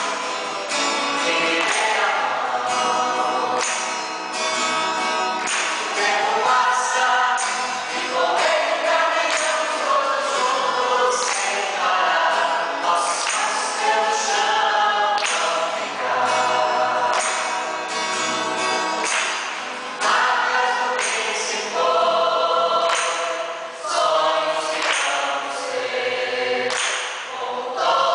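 A choir of men's and women's voices singing a hymn together, accompanied by acoustic guitars.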